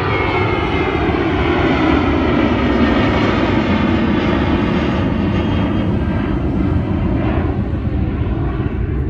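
Jet airliner climbing out after takeoff: a loud, steady engine rumble, with a high whine that glides down in pitch over the first couple of seconds.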